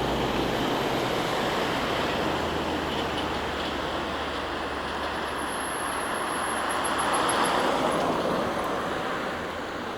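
Steady rushing noise of street traffic, swelling a little about seven seconds in.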